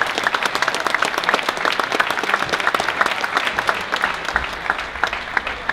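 Audience applauding, many people clapping in a dense, steady patter.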